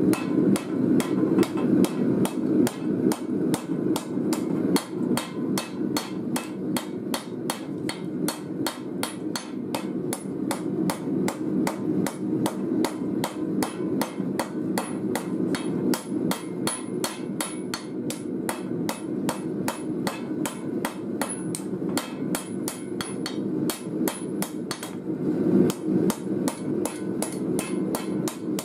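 Hand hammer striking a red-hot steel knife blank, forged from an old file, on an anvil: a steady run of blows at about three a second, each with a short metallic ring, over a steady low rushing noise.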